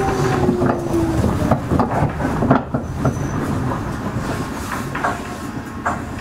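Meitetsu 6000 series electric train running, heard from inside the passenger car: a whine falls in pitch over the first second, and wheels click over rail joints. The running noise eases off as the train slows.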